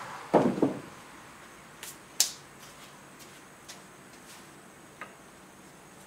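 Two wooden thumps about half a second in as the 2x4 top frame of a workbench is worked down onto its legs, followed by a few short, sharp clicks and light taps.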